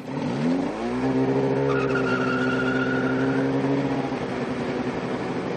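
Snowmobile engine revving up as it pulls away over the first second, then running at a steady speed.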